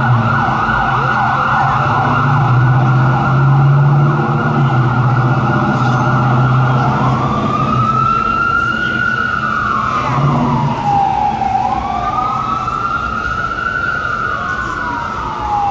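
Fire engine's electronic siren, a Whelen 295 on a Spartan Gladiator pumper, sounding a fast yelp over a low steady drone for about the first six seconds. It then switches to a slow wail that rises and falls twice, with a second siren wailing slightly out of step.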